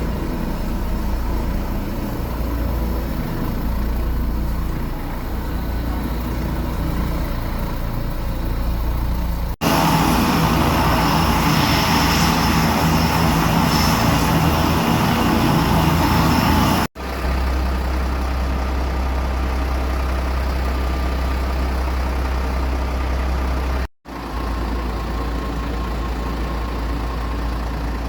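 Aircraft engine noise, steady, broken by three abrupt cuts: a louder, fuller stretch runs from about ten to seventeen seconds in.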